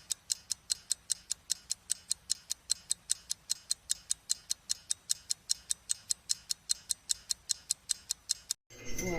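Fast, even ticking, about four to five sharp ticks a second, that cuts off abruptly near the end.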